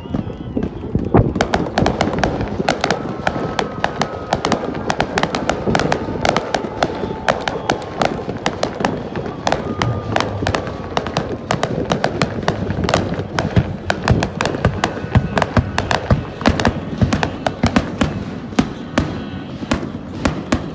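Fireworks display: a rapid barrage of bangs and cracks, several reports a second, starting about a second in and thinning out near the end.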